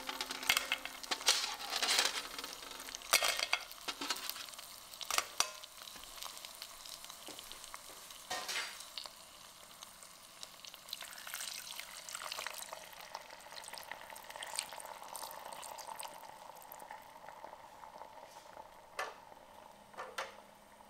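Sea bream and garlic frying in olive oil in an enamelled cast-iron braiser, a steady sizzle, with manila clams clacking as they are dropped into the pan, several in the first five seconds and a few more later.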